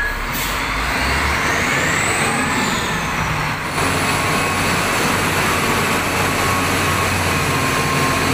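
Diesel engine of an XGMA wheel loader running as the machine works and drives, with a rise and fall in pitch about two seconds in. The sound changes abruptly twice, once just after the start and again nearly four seconds in.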